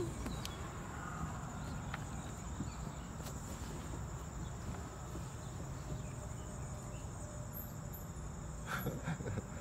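Insects droning steadily at a high pitch, with a low rumble underneath and a short burst of rustling near the end.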